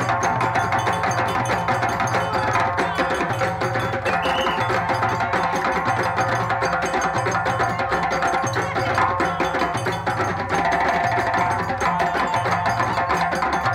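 A group of djembe drums played by hand in a dense, fast rhythm that does not stop, with deep tones repeating in a steady pattern underneath.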